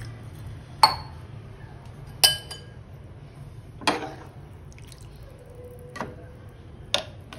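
A steel spoon stirring watery moong dal in an aluminium pressure-cooker pot: the liquid sloshes, and the spoon clinks sharply against the metal about five times, one clink ringing briefly.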